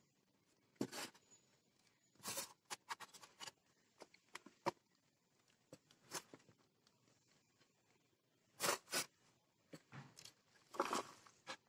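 Dry coconut-husk pieces (coir) rustling and scraping as they are handled from a plastic tub and laid into a polystyrene foam box. The rustles come in short scattered bursts, a few at a time, and are loudest about two-thirds of the way through and again near the end.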